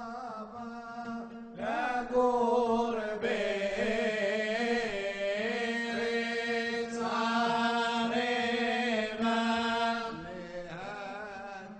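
Male cantor chanting a Jewish bakashot hymn in a long, ornamented line that bends and winds in pitch over a steady held low note. The singing grows louder about two seconds in and eases off near the end.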